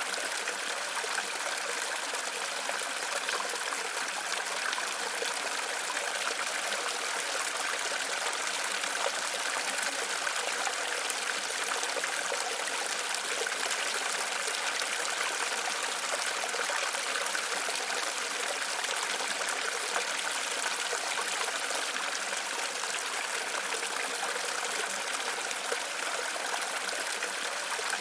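Waterfall water running steadily: an even, unbroken rush, bright and with little deep rumble.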